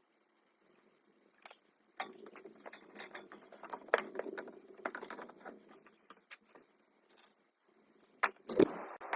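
Metal tools and parts clinking and rattling as they are handled, a run of sharp clicks for several seconds, then a loud knock near the end followed by a steady hiss starting.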